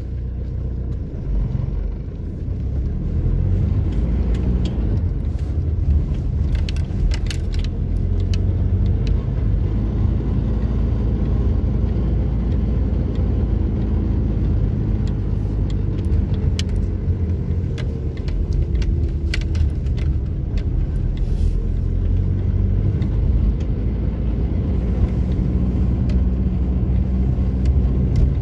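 Car driving slowly over a rough gravel road, heard from inside the cabin: a steady low rumble of tyres and engine, with scattered sharp clicks and rattles.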